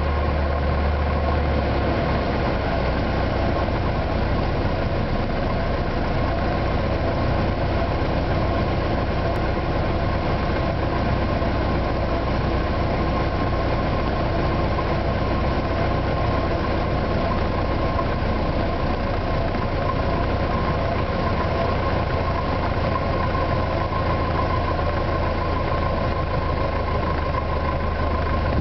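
Piper Warrior's four-cylinder Lycoming O-320 engine and propeller droning steadily on final approach to land, heard inside the cockpit.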